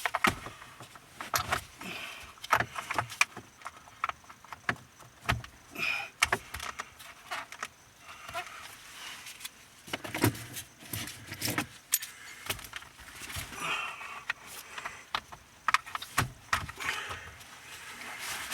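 Irregular clicks, taps and light rattles of hand tools and plastic steering-column trim being handled and unclipped.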